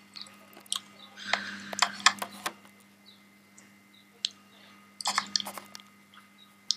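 Scattered light taps, clicks and brief rustles of hands handling touchscreen phones and the camera, over a faint steady hum.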